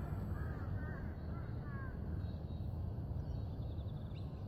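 Steady low outdoor rumble with a few short chirping bird calls in the first two seconds.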